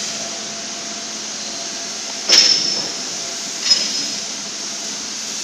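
Two sharp metallic clanks about a second and a half apart, the first louder, each with a brief high ring, over a steady background hiss.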